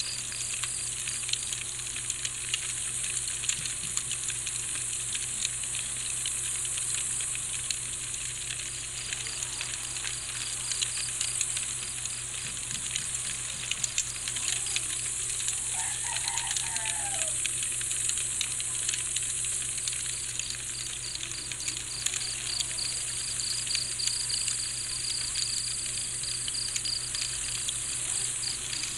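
Night insects, chiefly crickets, chirping in a fast, even pulse over a steady high-pitched insect hiss. A short call rises and falls about halfway through.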